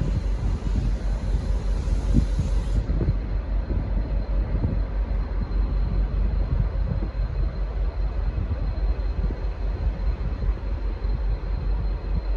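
V/Line N class diesel-electric locomotive, with its EMD 12-cylinder two-stroke diesel, running with a steady low rumble. A faint steady whine sits above it. No horn sounds.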